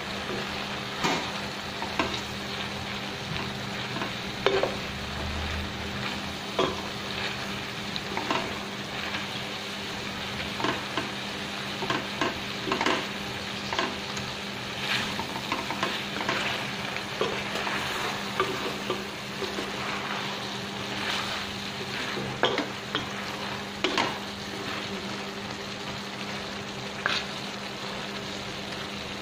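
Wooden spatula stirring chicken and alugbati (Malabar spinach) in a stainless steel pot over steady sizzling, with frequent short scrapes and knocks of the spatula against the pot.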